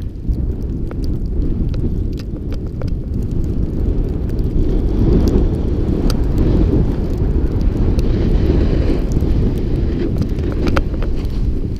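Wind buffeting the microphone of a helmet-mounted camera during a snowboard run, with the board hissing and scraping over the snow, louder from about four seconds in, and scattered sharp clicks.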